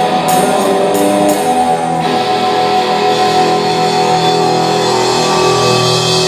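Live rock band playing, led by electric guitar, with a few sharp crashes early on; from about two seconds in the band holds one sustained chord.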